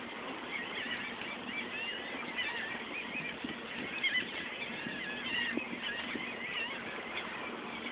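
Birds chirping, many short high calls overlapping and running on steadily, over a faint steady low hum.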